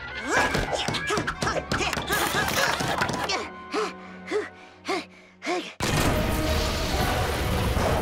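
Cartoon underscore music with comic sound effects: busy music with many sharp clicks, then four short notes that bend up and back down about half a second apart, then a sudden loud, dense din from about six seconds in.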